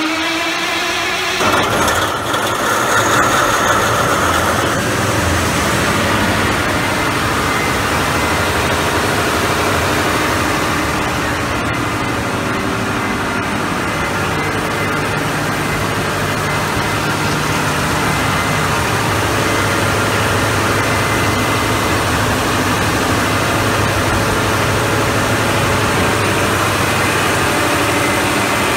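Caterpillar C175 V16 quad-turbo diesel generator engine, just started warm and with no load, running up to speed: its pitch rises over the first second or two, then settles into a loud, steady run.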